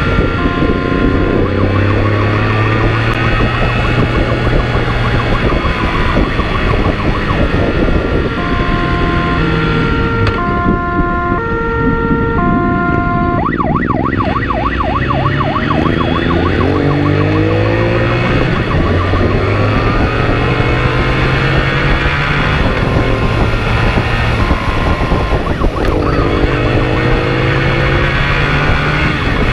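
Police motorcycle's two-tone siren alternating between a high and a low note, switching to a fast warble about halfway through. Under it the motorcycle's engine runs hard, its pitch climbing and dropping repeatedly as it accelerates and shifts.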